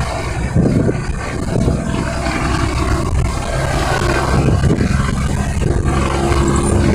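An International vehicle's engine running with a low, rough rumble that sounds like a pig grunting. A steadier, slightly higher note comes in about two-thirds of the way through.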